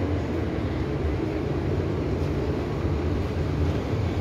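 Steady low rumble and hum of an underground train station's background noise, with no clear separate events.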